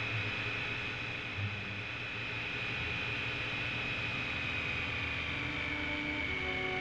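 Triumph Tiger Sport's three-cylinder engine running steadily under way, with wind and road noise on a bike-mounted action camera. A steady high whine dips slightly near the end.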